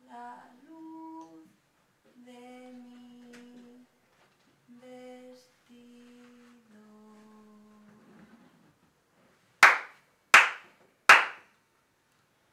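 A single voice singing a slow tune in long held notes with short pauses between phrases. About ten seconds in come three loud, sharp hand claps, evenly spaced about two-thirds of a second apart.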